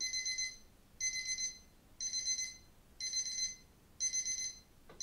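Smartphone alarm beeping: a high, warbling electronic tone in half-second bursts, about one a second.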